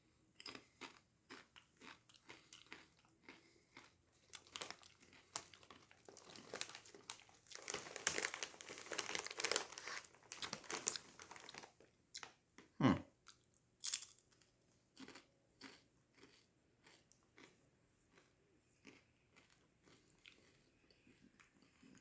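Close-up crunching and chewing of Doritos Twisted Queso tortilla chips, a run of sharp crackly bites that come thickest partway through and thin out toward the end.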